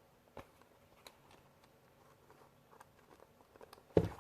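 Faint scattered clicks and taps of a clock mechanism and its fixing being worked by hand, then one sharp knock near the end.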